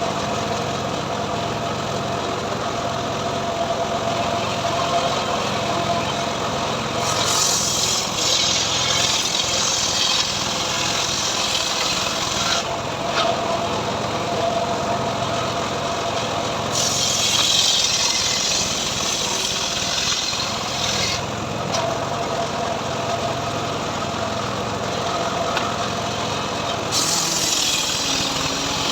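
Engine-driven home-built sawmill running steadily, with three stretches of added harsh hiss about 7 s in, 17 s in and near the end.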